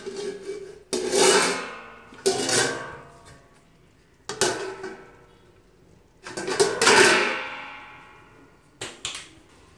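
Stainless steel plate, used as a lid, clanking against the rim of a metal wok as it is set and shifted into place. About five clanks, each ringing on and dying away over a second or two.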